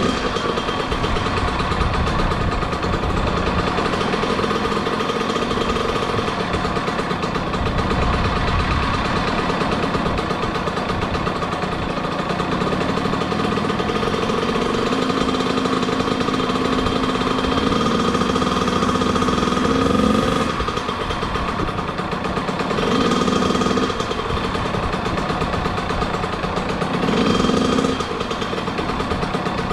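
Kawasaki KX100 single-cylinder two-stroke dirt bike engine, freshly rebuilt, running steadily at idle and blipped up in revs a few times in the second half, while its carburettor air screw is being set.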